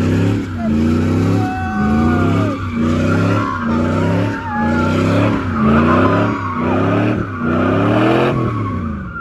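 Pickup truck doing donuts: the engine revs up and falls back over and over, a little faster than once a second, while the tyres squeal on the asphalt with a wavering high tone.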